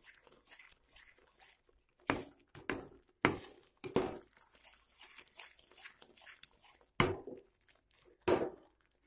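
Ladle scraping and knocking against a pan while stirring a thick Mysore pak mixture of flour and oil, in irregular strokes, the sharpest about two, three and seven seconds in.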